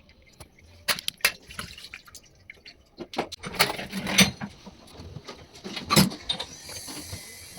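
Scattered light clicks and knocks of tools and small parts being handled while a diesel injection pump is worked on, the loudest at about one second, around four seconds and about six seconds in.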